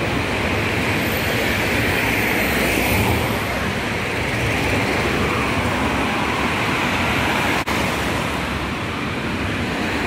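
City street traffic: cars passing along a boulevard, a steady rush of road noise that swells about three seconds in. The sound cuts out for an instant near the end.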